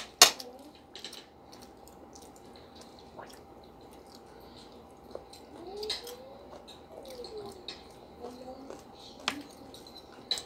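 Metal forks and spoons clicking and clinking against ceramic plates now and then, the sharpest click just after the start and another near the end. Soft wordless child vocal sounds come in between.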